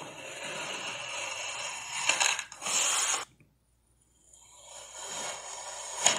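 Kinetic sand being cut: a knife slicing through a block with a gritty, crumbling hiss, then, after a short silent gap, a round metal cutter pushed down into a layered sand block, the crumbly rustle building to a sharp crunch just before the end.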